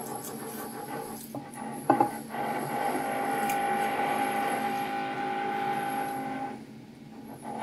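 Power tool from a neighbouring house renovation running with a steady high whine. It starts about two seconds in after a brief sharp noise and dies away about a second before the end.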